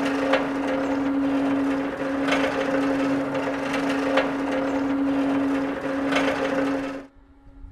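Boat crane hoist running with a steady hum and mechanical rattle while lowering a slung wooden powerboat, with a click about every two seconds; it stops abruptly near the end.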